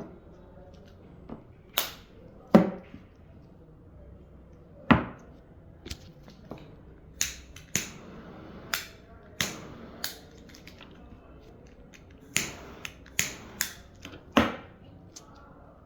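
A series of about fifteen sharp taps and knocks at irregular intervals. The loudest comes between about two and five seconds in, with a short low ring after it.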